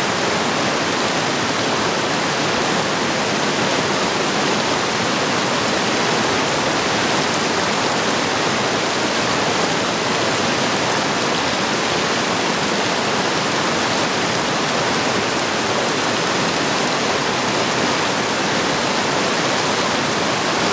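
Steady rush of flowing water: a creek running over rocks, with hot spring runoff spilling off a rock face into it.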